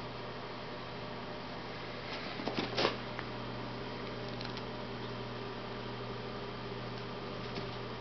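A steady low electrical hum, with a short cluster of clicks and rustles between two and three seconds in and a few faint ticks later.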